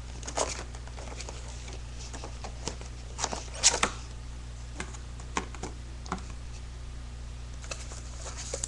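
Webcam box and its packaging being handled: scattered rustles and taps, loudest a little past three seconds in, over a steady low hum.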